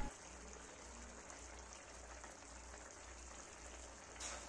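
Faint, soft simmering of chicken keema gravy in a kadai as the liquid reduces, with a brief louder scrape about four seconds in as a spoon drops ground spice into the pan.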